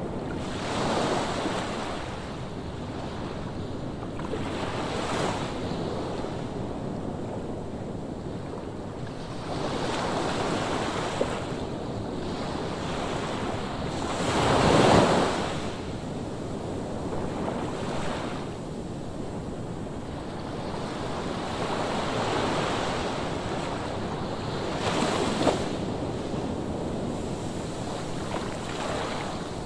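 Ocean surf: waves breaking and washing in one after another over a steady roar of water, the biggest wave breaking about halfway through.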